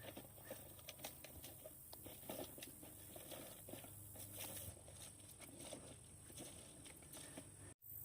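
Faint outdoor background with a steady high hiss and many small, scattered ticks and clicks.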